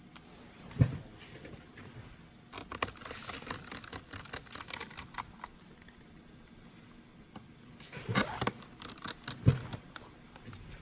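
Laptop being handled, with irregular plastic clicks and taps and two sharper knocks, one about a second in and one near the end.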